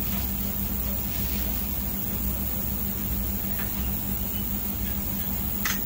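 Steady low hum and hiss of a machine or appliance running, with a sharp click near the end.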